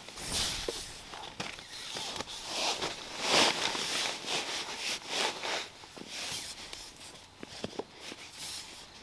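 A person shuffling and rustling around in irregular bursts, with a few light knocks, the loudest about three seconds in.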